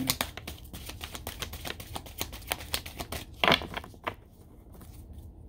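A deck of oracle cards being shuffled by hand: a fast run of papery card clicks and flutters, with one louder slap about three and a half seconds in, thinning out near the end.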